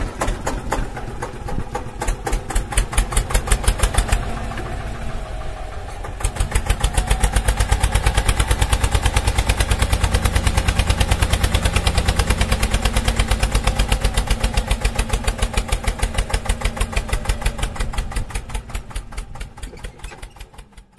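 Diesel tractor engine running with a fast, even chugging beat. The beat grows steadier and stronger about six seconds in, then fades out near the end.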